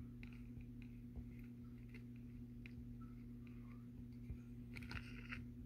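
Faint, scattered light clicks and rustles of metal tongs working in a plastic cup of wood shavings, with a small cluster of clicks about five seconds in, over a steady low hum.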